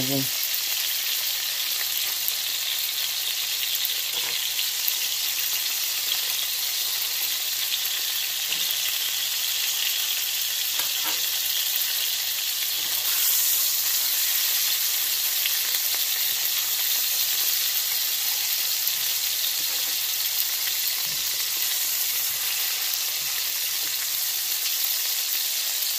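Flour-dredged cube steaks frying in shallow vegetable oil in a cast iron pan, a steady hiss of sizzling as they brown over medium-high heat.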